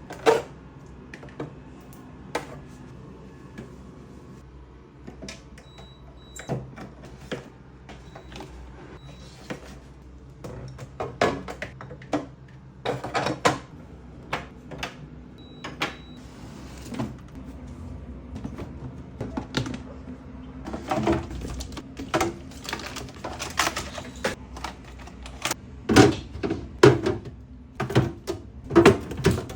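Containers, jars and food packages being handled, moved and set down on refrigerator shelves: irregular knocks, clinks and thuds, busier and louder in the second half, over a low steady hum.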